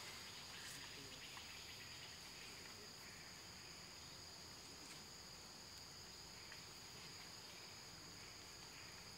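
Faint, steady high-pitched drone of forest insects, two shrill tones held level throughout, with a few faint clicks.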